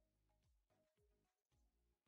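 Near silence, with very faint background music: a steady beat of about two low drum hits a second and short melodic notes.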